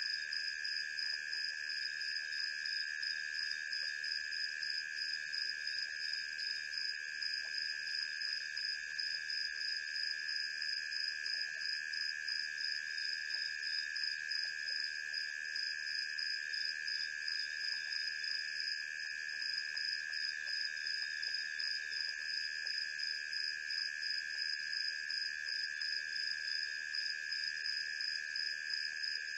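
Steady night chorus of insects: several overlapping high-pitched trilling tones that hold without change, the highest one pulsing rapidly.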